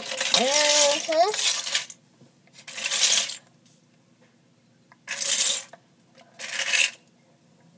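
Loose plastic Lego bricks rattling and clattering in several short bursts as a hand rummages through them for a piece. In the first second or so a wordless voice rises in pitch over the clatter.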